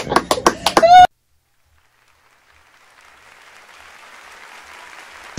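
A few people clapping their hands, quick sharp claps, with a short rising voice at the end; about a second in it all cuts off to silence. A faint hiss then slowly fades up.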